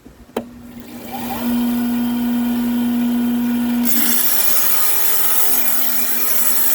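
Tile saw switched on with a click, its motor humming up to speed. About four seconds in the blade bites into an agate and a loud, hissing grinding sets in, the motor's pitch sagging and wavering under the load of the cut.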